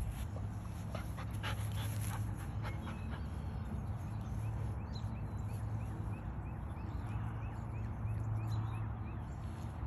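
Golden retriever puppy and adult golden retriever playing in grass: soft dog whimpers and yips with rustling and scuffling, over a steady low hum.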